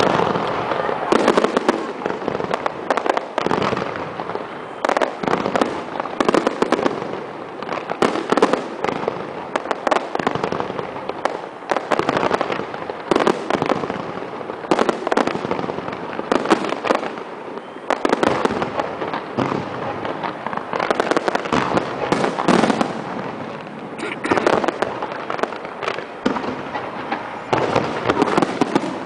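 Fireworks display at its height: a dense, unbroken run of shell bursts, booms and crackling, with many reports overlapping.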